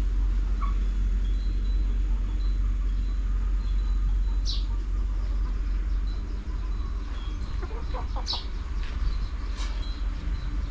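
Chickens clucking on a farm, with two sharp high chirps and a short burst of quicker calls near the end, over a steady low rumble.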